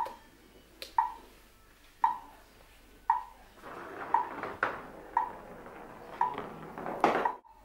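Sharp metallic ticks, each with a short ring, repeat steadily about once a second. About halfway through, a rustling noise joins them, and both cut off abruptly just before the end.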